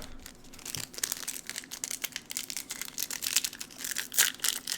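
Foil Pokémon booster pack wrapper crinkling rapidly as it is handled and torn open.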